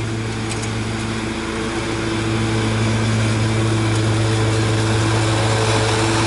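Toro 6000 Series zero-turn mower's engine running steadily as the mower drives across the lawn toward the listener, growing louder about two seconds in as it comes closer.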